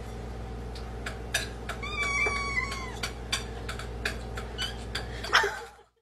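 A kitten meows: one drawn-out meow about two seconds in that drops slightly at its end, then a shorter meow near the end. Scattered light clicks are heard between the meows.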